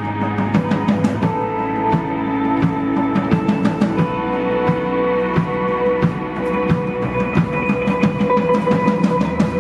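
Rock band playing live: a drum kit beats steadily under held guitar and bass notes, with no singing.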